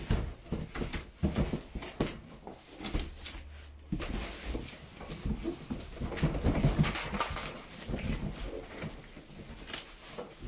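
A large cardboard shipping carton being tipped and handled: cardboard scraping and rubbing with scattered knocks as the inner product box is slid out of it. The rubbing grows denser about four seconds in.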